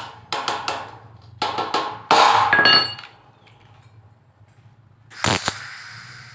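Steel trim pieces clinking and knocking against a steel door frame as they are set into a corner, the loudest knock about two seconds in ringing briefly. About five seconds in there is a sudden short noisy burst that trails off into a hiss.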